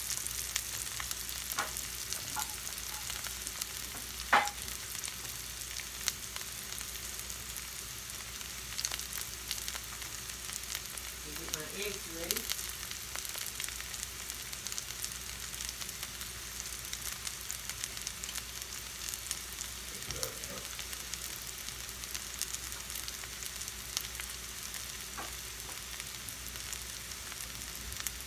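Potatoes frying in oil in a stainless steel skillet: a steady sizzle with fine crackling pops. A single sharp knock stands out about four seconds in.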